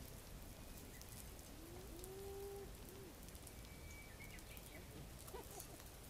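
Quiet outdoor background hiss, with one short pitched hum-like call about two seconds in and a few faint chirps near the end.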